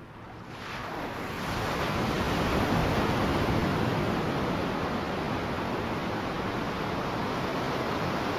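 Ocean surf breaking on the shore: a rushing wash of water that swells over the first couple of seconds, then holds as a steady roar.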